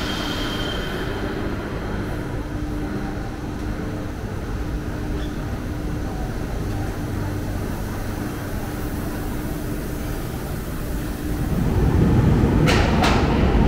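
Steady low rumble of train noise with a faint on-and-off hum. Near the end it gets louder as the sound of a commuter train at a station platform takes over, with two sharp clicks close together.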